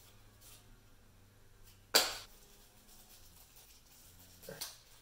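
Quiet handling of a cardboard camera box and its plastic wrapping, with one sharp knock about two seconds in and a softer knock near the end.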